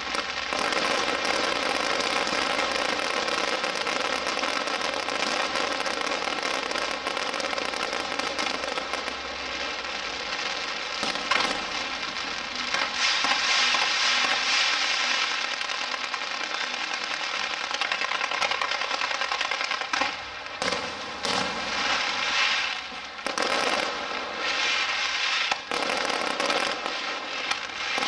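Fireworks display going off in a dense, continuous barrage of crackling and popping. It is loudest a little before the middle, and the barrage thins with a few short gaps in the later part.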